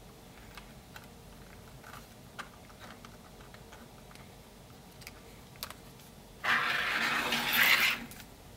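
Cordless electric screwdriver running for about a second and a half on a screw in a 3D-printed plastic part, after a few light clicks of plastic parts being handled.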